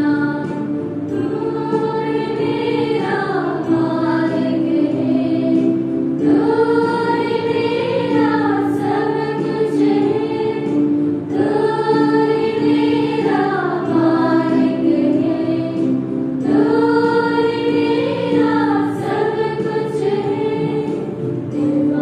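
Background music: a choir singing a slow hymn, its phrases rising and falling over a steady held low note.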